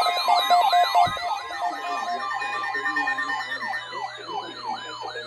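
Electronic siren-like wails, several layered tones gliding up and down a few times a second. A steady low hum joins about two seconds in.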